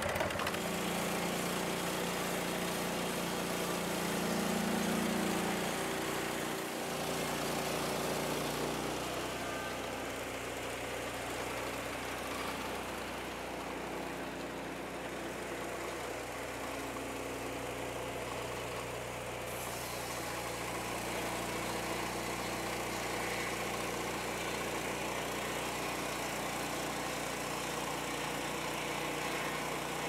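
Gasoline engine of a Lucas swing-blade sawmill running steadily, driving the circular blade as it cuts along a Douglas fir log. The engine note drops slightly about nine seconds in, then holds steady.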